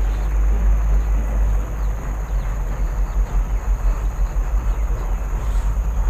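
Low, fluctuating rumble of wind buffeting the microphone outdoors, with a few faint high chirps near the end.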